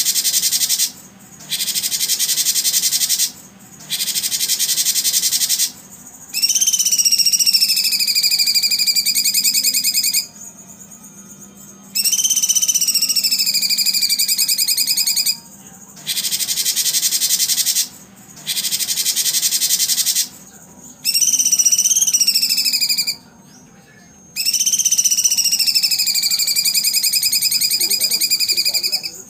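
Looped bird-training recording of high calls played in abrupt, edited blocks. Dense, rapidly pulsing buzzy trills a second or two long alternate with longer clear calls that slide down in pitch and waver, each cut off sharply with short gaps between.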